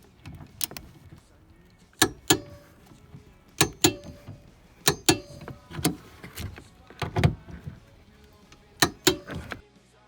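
A series of sharp clicks and knocks in pairs, about six pairs spread over several seconds, from hardware being worked on inside a car.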